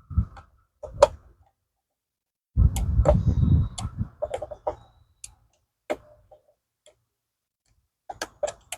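Scattered, irregular clicks and knocks of a hand wrench working on a bolt and metal bracket, with a busier stretch of handling noise and knocks about three seconds in.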